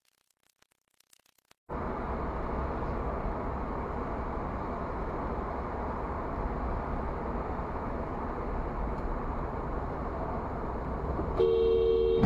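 Steady road and engine noise of a moving car, heard from inside the cabin, cutting in suddenly a couple of seconds in. Near the end a car horn sounds, a two-note blare held down, as a warning to a car cutting in close in front.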